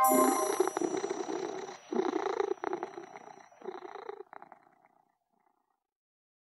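A cat purring in a run of short breaths, each just under a second long, growing weaker and dying away about five seconds in. A high chime note from the closing music rings away under it at the start.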